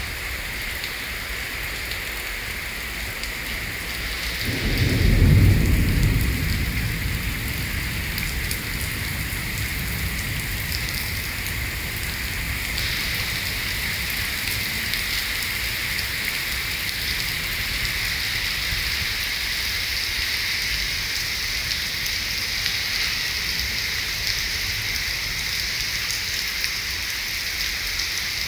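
Heavy rain pouring steadily onto wet pavement, with a low roll of thunder about four to seven seconds in that is the loudest part. The rain hiss turns brighter near the middle.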